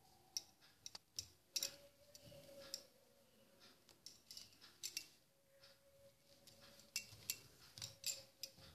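Faint, irregular sharp clicks and ticks as hands thread small plastic beads onto a needle and thread for beadwork. A faint steady hum comes and goes underneath.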